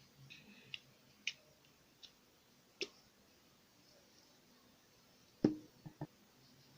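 Slime being squeezed and poked, giving scattered small clicks and pops, with a louder, deeper pop about five and a half seconds in followed quickly by two more.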